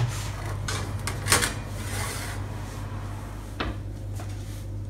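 A metal baking tray being put into an oven: a sharp clank about a second in, a short scrape as it slides in, then a knock near the end as the oven door is shut. A steady low hum runs underneath.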